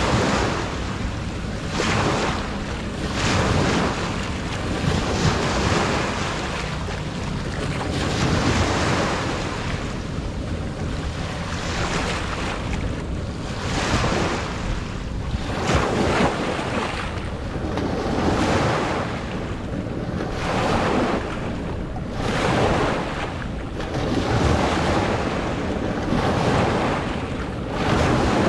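Sea waves surging and washing in, the noise swelling and falling every couple of seconds, with wind buffeting the microphone.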